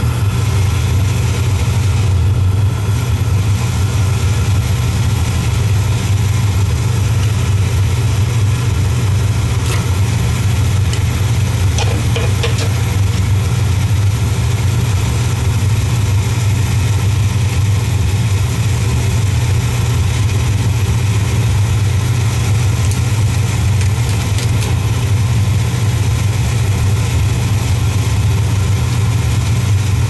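Beckett oil burner firing steadily on an old oil boiler: its blower motor, pump and flame make a loud, steady low hum, with a few light clicks about twelve seconds in. The burner runs at a raised pump pressure of 140 psi and may still be short of combustion air, as the technician suspects, which would explain the black soot.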